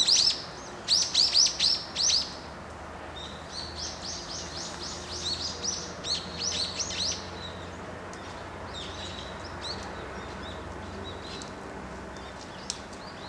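Small songbirds giving quick, high chirps in rapid runs, loudest over the first two seconds, then softer runs and a few faint scattered calls later.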